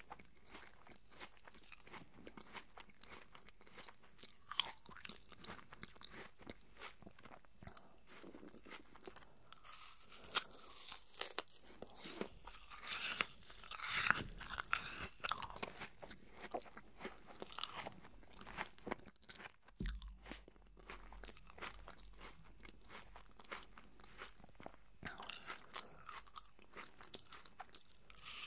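Pieces of apple being chewed close to a microphone: crunching with many short clicks, loudest around the middle, then a fresh bite into an apple slice near the end.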